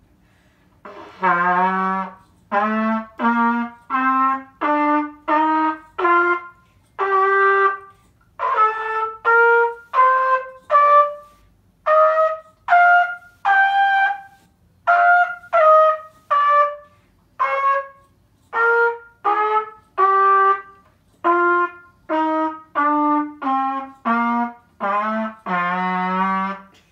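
A brass instrument playing a slow scale in separately tongued notes, roughly one a second. It climbs more than two octaves from a low note and then steps back down to the same low note, which it holds a little longer at the start and the end.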